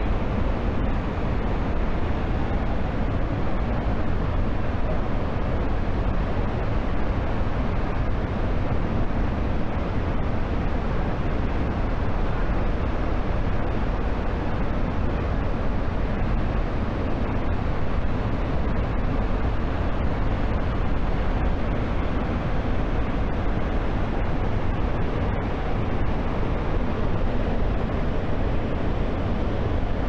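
A large waterfall in full flow after heavy rains: a steady, dense rush of falling water with a strong low rumble.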